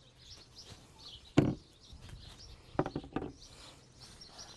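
A single sharp knock about a second and a half in, then a few lighter clicks around three seconds, over faint birdsong.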